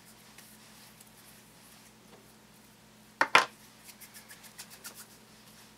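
Plastic Play-Doh toy pieces being handled: one loud clack a little past three seconds in, then a quick run of about eight small clicks.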